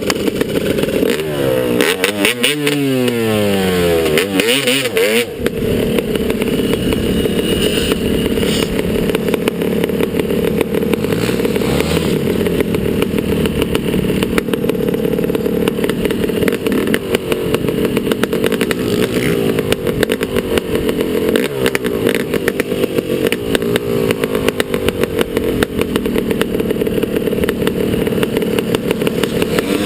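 Motocross bike engine revving up and down in quick sweeps for the first few seconds, then running at fairly steady high revs with small rises and falls in pitch.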